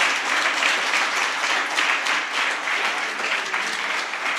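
Audience applauding: dense, many-handed clapping that holds steady and eases off slightly near the end.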